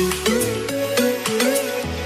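Electronic background music with a steady beat, a bass line and a short stepping melody.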